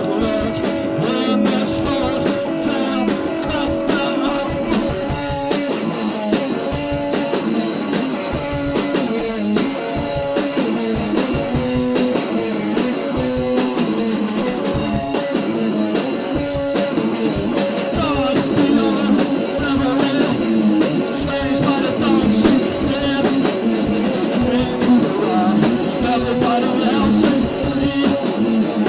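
A band playing blues-rock with guitar and drum kit, the instruments drastically out of tune.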